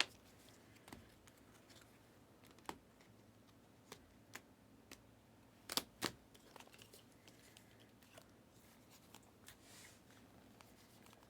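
Faint, scattered clicks and taps of trading cards and card holders being handled and set down on a table, with two sharper taps a little before the middle.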